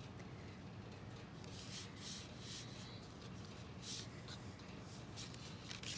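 Felt-tip marker drawing on paper: a series of short, faint strokes.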